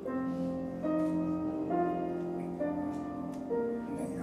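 Slow, gentle background piano music: sustained chords that change roughly once a second.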